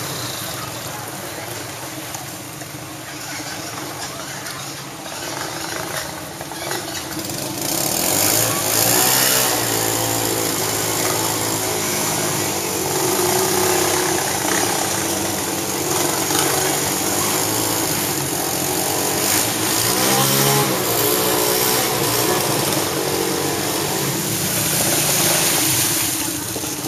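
Small motorbike and scooter engines running and revving, with water splashing as they are pushed and ridden through floodwater. Louder from about eight seconds in.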